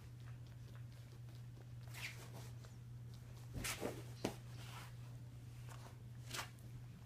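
Faint rustling with a few soft clicks, clustered about halfway through and again near the end, over a steady low hum.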